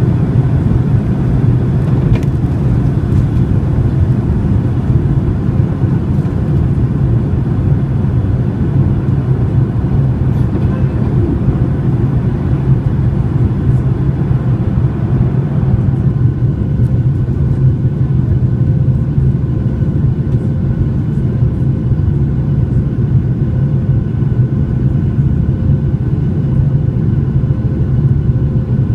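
Boeing 737-800's CFM56-7B jet engines and airflow heard from inside the passenger cabin: a loud, steady, deep rumble. About halfway through the higher hiss eases slightly and faint steady tones come in.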